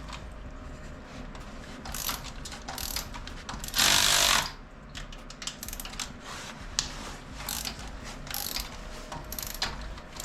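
Ratchet wrench clicking and metal tools clinking while bolts are worked loose on an engine, with a brief louder burst of hissing noise about four seconds in.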